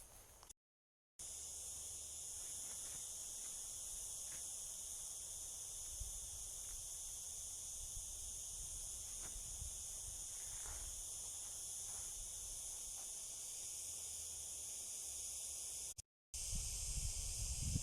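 Steady, high-pitched insect chorus ringing on without pause, with a faint low rumble beneath. It cuts out to silence for a moment near the start and again near the end.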